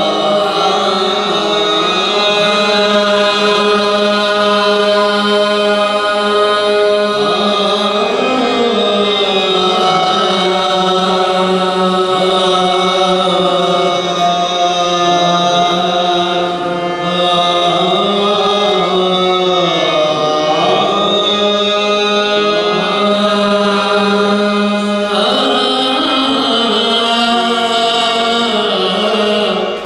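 Qawwali singers performing with harmonium: voices hold long, bending notes over a steady drone, with no drum beat.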